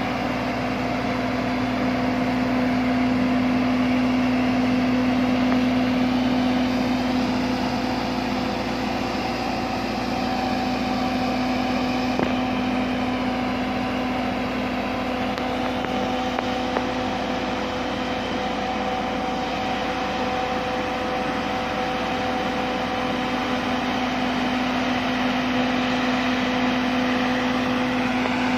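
Mobile boat hoist (travel lift) running under load as it drives slowly with a yacht in its slings: its engine and hydraulic drive give a constant hum with a steady tone.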